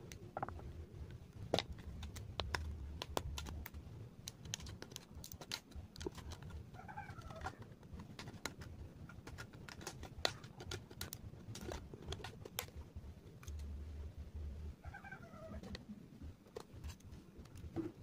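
Thin plastic bottle crackling and clicking as it is gripped and cut with a utility knife, with two short wavering squeals, one about seven seconds in and one near fifteen seconds.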